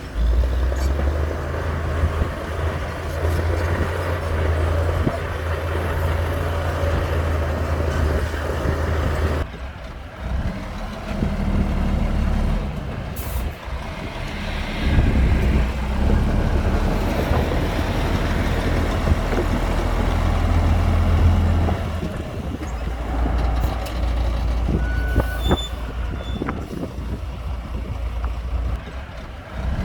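Heavy diesel engines of earthmoving machinery running under load, a steady low drone. The sound changes abruptly about ten seconds in and again a little past twenty seconds.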